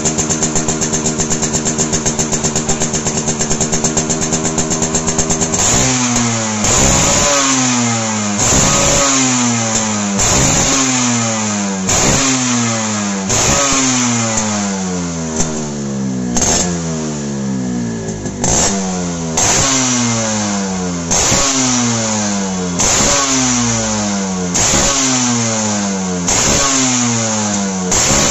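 Yamaha RX135's two-stroke single-cylinder engine running at a steady speed for about five seconds, then revved in repeated throttle blips, one every one and a half to two seconds, the pitch falling back after each.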